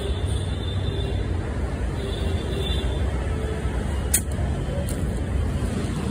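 Steady low rumble of road traffic, with a faint high steady tone that comes and goes and a single sharp click about four seconds in.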